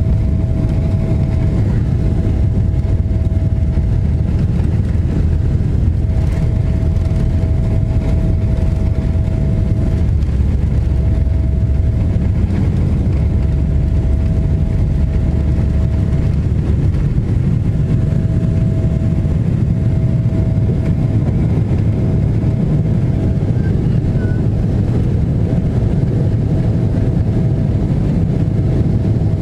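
Jet airliner's engines at takeoff thrust, heard from inside the cabin: a loud, steady roar with a deep rumble and a thin whine that drops in and out, through the takeoff roll and liftoff.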